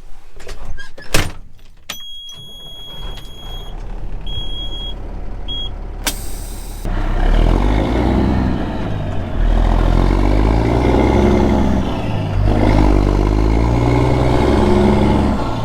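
Clicks and knocks, then a vehicle's warning chime beeping a few times; about six seconds in a truck engine starts and then runs loudly and steadily.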